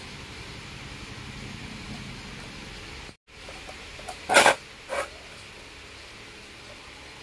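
Steady hiss broken by a brief dead gap, then two short knocks about half a second apart, the first one louder and doubled.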